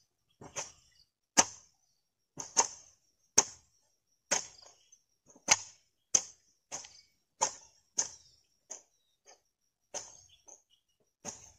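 A hand hoe chopping into dry, cloddy soil to loosen it, about one stroke a second, some strokes landing as quick doubles.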